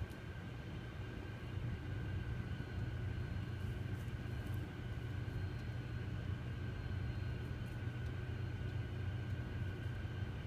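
Steady low mechanical rumble with a faint steady high whine above it, unchanging throughout: urban background hum.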